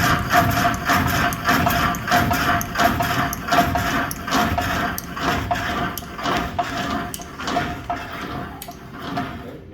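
The 1890s sawmill's reciprocating jig saw, a 7-foot blade driven up and down by a rocker arm, running with a steady knocking at about three strokes a second over a constant hum. The strokes slow and grow quieter over the last few seconds.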